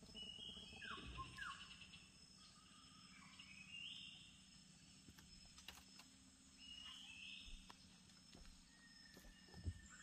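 Faint rainforest ambience: a steady high insect drone, with three short bursts of chirping calls from birds or insects about three seconds apart, and another steady insect tone starting near the end.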